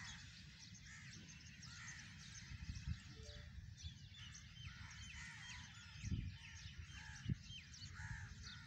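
Crows cawing repeatedly, with small birds chirping quickly and high over a steady low rumble. A few dull thumps stand out, the loudest about six and seven seconds in.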